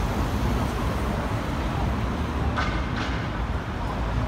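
Steady low rumble of city street traffic, with engine noise from vehicles on the road. Two short sharp clicks stand out about two and a half and three seconds in.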